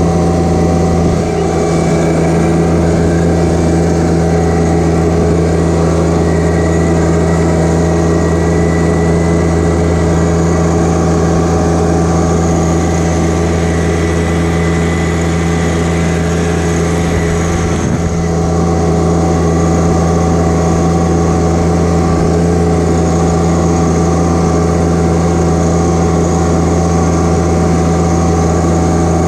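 John Deere 1025R compact tractor's three-cylinder diesel engine running at a steady, unchanging speed while the tractor drives.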